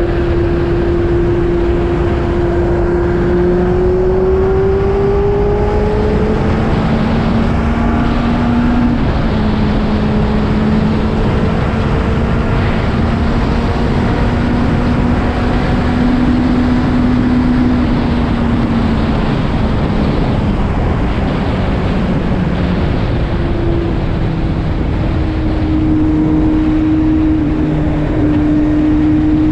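Kawasaki Z750's inline-four engine, fitted with an Arrow aftermarket exhaust, running under way, its pitch rising and falling gently with speed, over a steady rushing noise.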